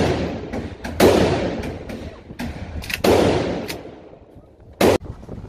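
Century Arms Micro Draco AK pistol (7.62×39) firing single shots in an indoor range. Loud reports come about a second in, about three seconds in and near the end, each trailing a long echoing decay, with fainter shots in between.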